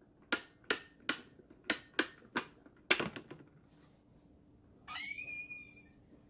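A run of sharp plastic clicks, about eight in three seconds at an uneven pace, from the ratcheting handle of a Pie Face! game being cranked, the loudest near three seconds in. Near five seconds a short high-pitched squeal falls slightly in pitch.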